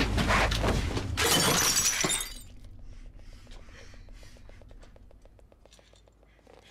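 A loud crash and glass smashing as a vase of roses shatters on the floor during a struggle. The noise cuts off about two seconds in, leaving a faint, fast, even ticking.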